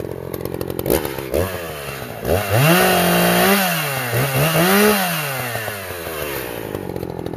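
Echo CS-590 Timber Wolf 59.8cc two-stroke chainsaw idling, blipped once about a second in, then revved up twice, the pitch rising, holding, dipping and rising again before it drops back to idle.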